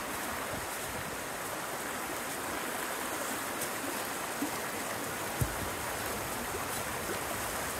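Swollen, fast-flowing creek running in spate: a steady rush of water. A few faint ticks and one short soft knock about five and a half seconds in.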